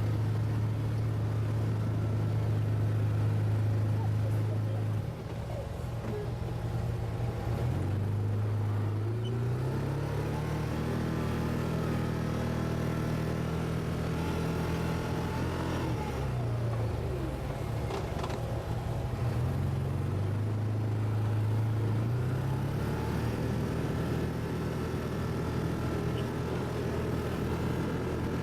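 ATV engine running under way, its pitch dropping about five seconds in, climbing again, dipping once more in the middle and then holding steady.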